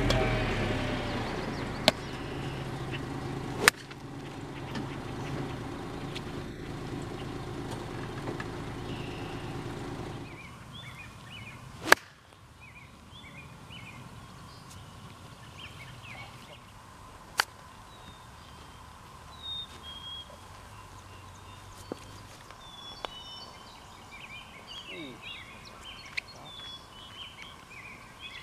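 Several sharp clicks of hickory-shafted golf clubs striking golf balls, the loudest about twelve seconds in. A steady low hum runs under the first ten seconds and then stops, and birds chirp through the second half.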